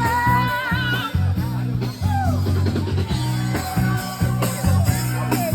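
Music with a singing voice over a steady bass and drum beat, with guitar.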